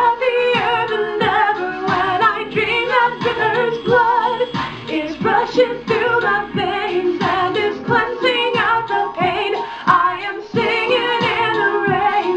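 A woman singing with vibrato, her lead voice layered with an added harmony vocal track.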